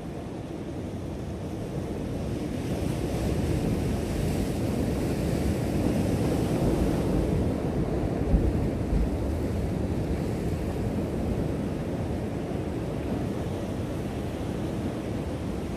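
Sea surf washing over a rock shelf, swelling to a peak midway and then easing off, with wind rumbling on the microphone and a brief low bump about eight seconds in.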